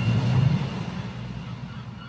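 Whale call heard underwater: a low moan with faint high tones above it, trailing off in the first half second, then a quiet hiss.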